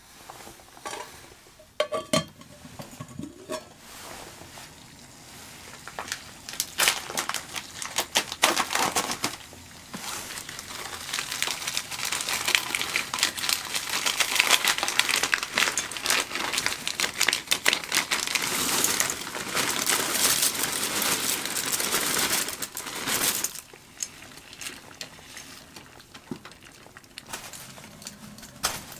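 Crinkly rustling of camping gear being handled, with many sharp clicks and a few knocks. The rustling is sparse at first, becomes dense and loudest through the middle stretch, then thins out again near the end.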